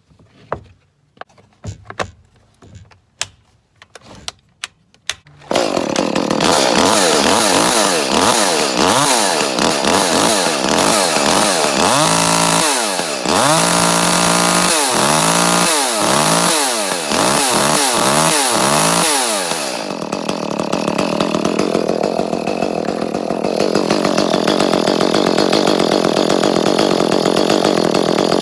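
Echo CS-310 two-stroke chainsaw, fresh spark plug fitted: a few clicks and knocks, then the engine starts about five seconds in and runs loud. It is revved up and down about half a dozen times, then settles to steady running, with no cutting out at the top end.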